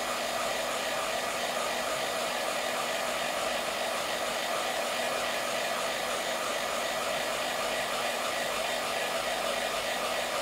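iTeraCare handheld wand blowing, its built-in fan running with a steady, unchanging whir.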